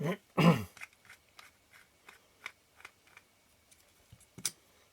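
Small sharp metal clicks, about three a second, then one louder click near the end: a small JIS 0 screwdriver working the tiny screws out of a lens's focus ring. A short murmur of voice at the start.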